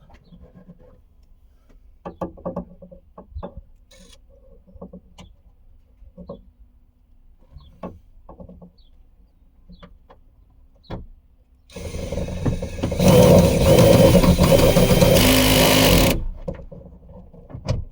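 Small metal clicks and taps as a 10mm bolt and socket are handled and lined up. About twelve seconds in, a motorized driver runs the bolt in loudly for about four seconds. A shorter burst starts near the end.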